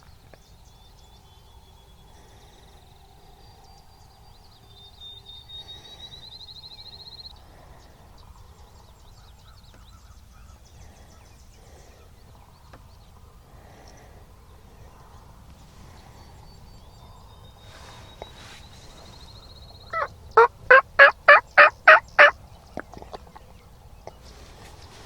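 A series of about eight loud, evenly spaced turkey yelps, lasting a little over two seconds, near the end.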